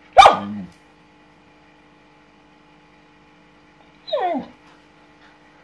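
Samoyed dog crying out at a red tegu lizard behind the terrarium glass, worked up at the sight of it: a short, loud cry just after the start, then a high whine that slides down in pitch about four seconds in.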